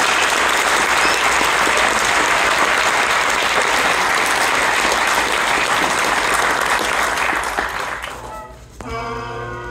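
Audience applauding, dying away about eight seconds in. Near the end a Highland bagpipe strikes in, its drones and chanter sounding together as one steady chord.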